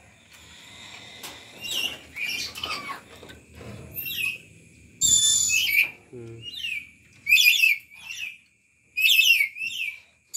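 A green lory, the Nuri Aru, giving a string of short, shrill squawks, each sliding down in pitch. The loudest, harshest calls come about five, seven and nine seconds in.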